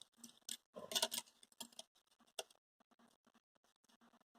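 Handling clicks and light rattling of a Kangaro HD-23S17 heavy-duty stapler as its staple magazine is pulled open and staples are loaded: a cluster of small clicks in the first two seconds and a single sharper click a little later.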